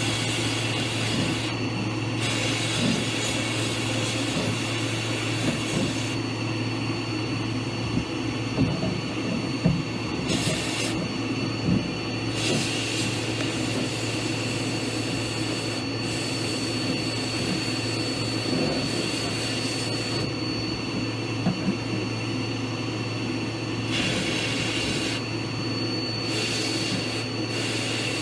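Electric power tool motor running steadily with a constant hum, a scattering of sharp clicks near the middle, and a hiss that cuts in and out every few seconds.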